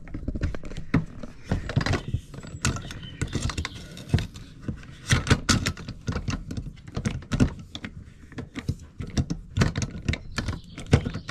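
Irregular clicks, taps and light knocks from the aluminium tubes and plastic fittings of a Thule bike rack being handled and fitted together.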